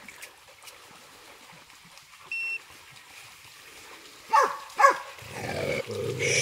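Hunting hound giving two short yelps, each falling in pitch, about four and a half seconds in, followed by a rough, growing noise near the end.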